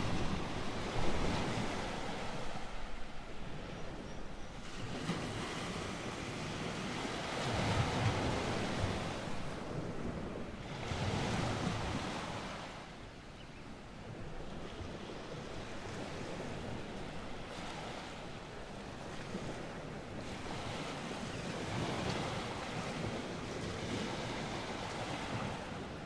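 Ocean waves washing in a steady hiss that swells and eases in slow surges every few seconds.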